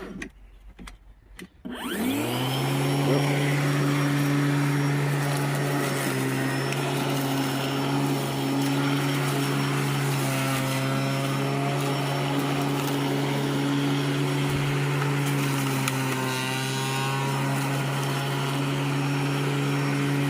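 Litheli cordless electric lawnmower being started: a few clicks, then its electric motor spins up quickly about two seconds in and runs at a steady hum with the blade whirring.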